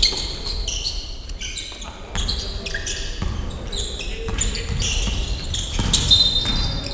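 Basketball shoes squeaking on a wooden gym floor in quick short chirps during play, with a basketball bouncing and thudding, in a large hall.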